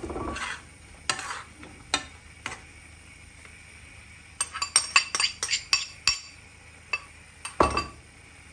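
A metal spoon clinking and scraping against a small bowl and a frying pan. Single clicks come first, then a quick run of clinks about four and a half to six seconds in, and a heavier knock with a scrape near the end.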